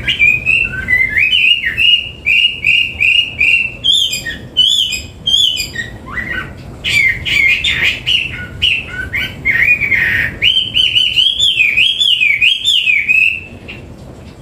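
Chinese hwamei singing a loud, varied song of clear whistled phrases, with runs of rapidly repeated notes and rising and falling glides. The song stops shortly before the end.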